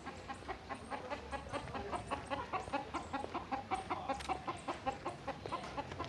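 Chickens clucking: a quick run of short calls, several a second, loudest through the middle.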